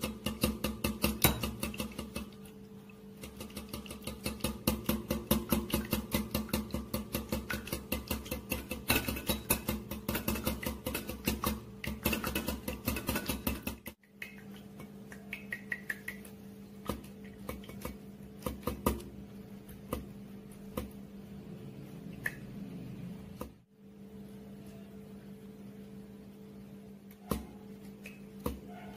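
Wire whisk beating egg and oil into mayonnaise in a glass bowl, its wires clicking against the glass at about four strokes a second. After about 14 seconds the taps turn sparse and quieter as the mayonnaise thickens.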